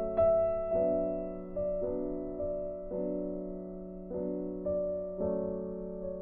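Background music: a slow, gentle piano melody, single notes and chords struck about once a second and left to ring out.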